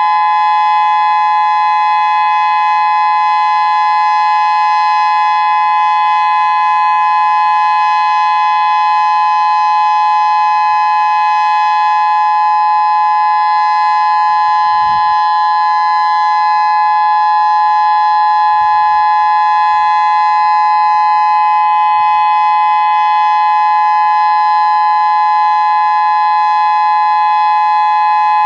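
Federal Signal Modulator 6024B electronic warning siren, 24 100-watt drivers, sounding its steady Alert tone: a loud, unwavering two-note chord with no rise or fall.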